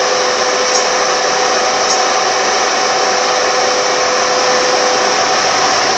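Car air-conditioning blower fan running steadily: a loud, even rush of air with a faint steady whine, part of which stops about five seconds in.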